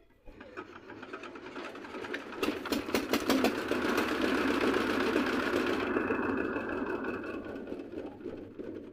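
Single-cylinder diesel engine of a homemade three-wheeled cargo vehicle, started by hand crank: it catches and runs with a rapid, even knocking beat, then slows and dies away near the end as it is shut off by hand.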